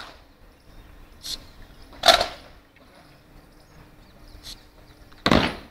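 A squad of cadets doing rifle drill: a few sharp slaps and knocks of hands and rifles struck in near unison as the weapons are brought up, spread across several seconds, the loudest near the end.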